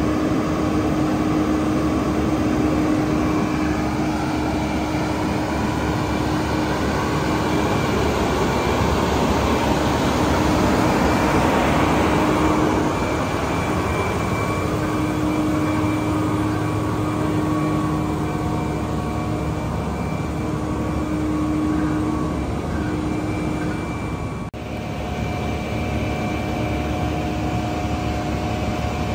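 Diesel engine of a Seagrave Aerialscope tower ladder fire truck running steadily to power the raised aerial, a continuous drone with a pitched hum that comes and goes. It swells briefly about ten seconds in.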